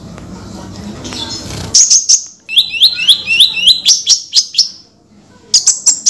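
Konin sunbird singing. After low background noise, sharp high chirps start about two seconds in. They lead into a rapid run of about ten repeated downslurred notes, and after a short pause comes another burst of chirps near the end.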